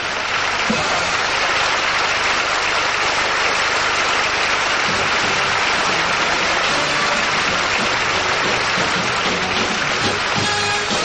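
Large audience applauding steadily, a dense continuous clapping, with the show music faintly under it and coming back in near the end.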